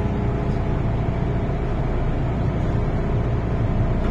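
Steady low hum and rumble inside an MTR Tsuen Wan Line M-Train car with its doors shut. It holds an even pitch and never rises or falls.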